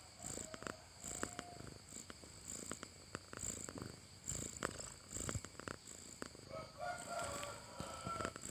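A sleeping cat snoring close to the microphone: soft raspy breaths repeating under a second apart, with small clicks, and a faint whistling tone in the breath near the end.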